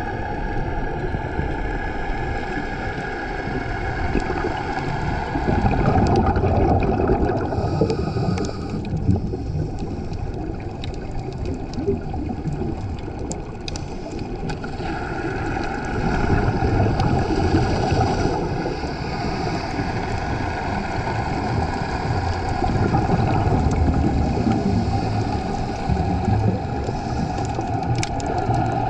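Underwater sound through a GoPro housing: a steady drone of boat engines carried through the water, with a muffled low rush of the diver's exhaled bubbles swelling up three times.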